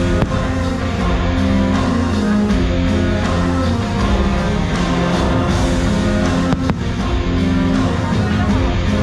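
Loud show soundtrack music in a rock style, with guitar and a driving bass.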